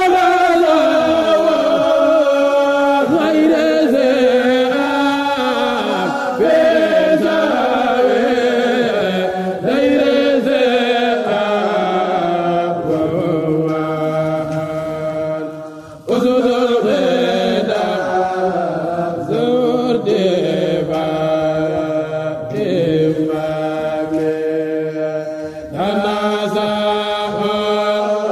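A Mouride khassida (Sufi religious poem) chanted by a male kourel lead voice, unaccompanied, in long wavering melismatic lines. He breaks briefly for breath about halfway through and again near the end.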